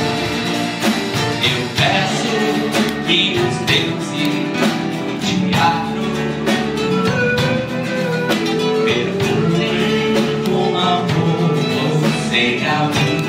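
Live band music: strummed acoustic guitars with voices singing over them.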